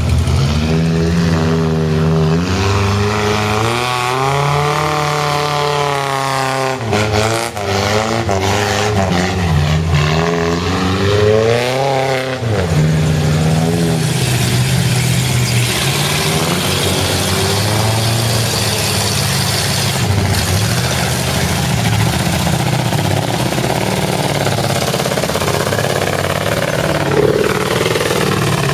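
Off-road truck engine revving hard on a steep dirt hill climb, its pitch rising and falling in repeated surges for about the first half. After that it runs more steadily under a rougher, noisier sound.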